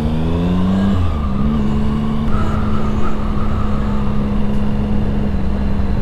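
Triumph Speed Triple's three-cylinder engine under way, its pitch rising for about the first second as it accelerates, then settling into a steady run.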